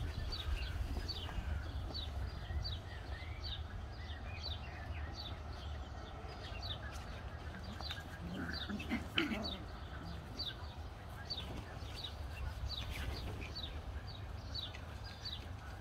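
A bird calling over and over: short high chirps that slide downward, about two to three a second, over a steady low rumble. A brief puppy vocalisation breaks in about nine seconds in.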